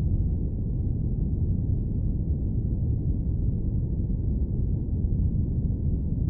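Steady, deep airplane cabin noise: an even low rumble with no high hiss and no changes.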